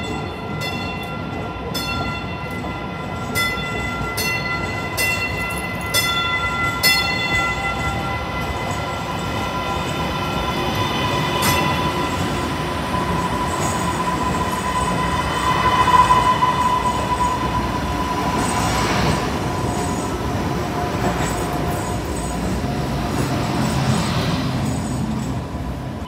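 MBTA Green Line light-rail train running into an underground station and past the platform. Sharp clicks of wheels over rail joints come in the first seven seconds, over a steady high whine that is loudest about two-thirds of the way through.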